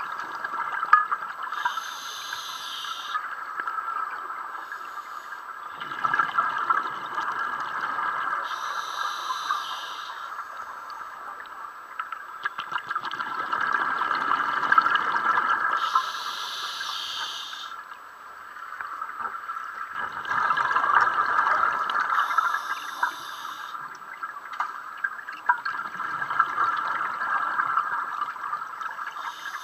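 Scuba diver breathing through a regulator underwater: a short hiss of each inhalation, then a longer bubbling rush of exhaled air, repeating about every six to seven seconds over a steady hum.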